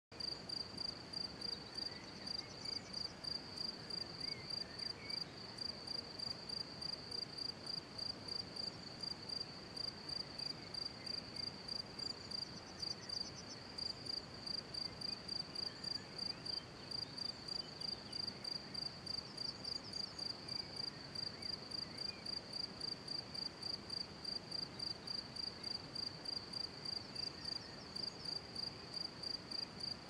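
Steady, high-pitched cricket-like chirping, pulsing evenly about three times a second, with faint short calls of small birds a few times.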